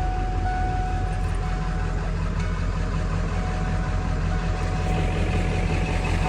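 Vehicle engine idling: a steady low rumble with a thin, steady high whine over it.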